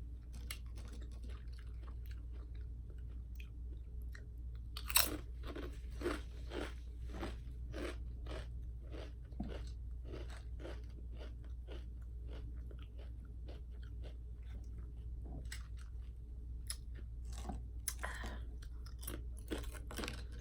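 Close-miked chewing. About five seconds in, a loud bite into kettle-cooked jalapeño potato chips starts a run of crisp crunching chews, one or two a second.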